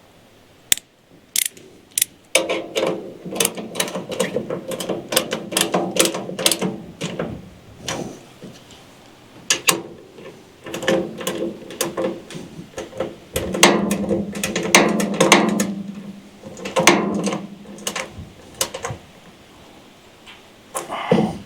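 Hand ratchet wrench clicking in several bursts of quick strokes, with short pauses between them, as bolts are run in to fasten a sawdust chute onto a bandsaw mill.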